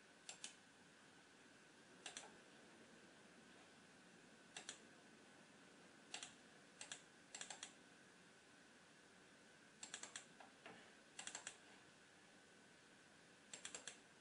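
Faint computer clicks in short groups of two to four, a group every second or two, over a faint steady high hum.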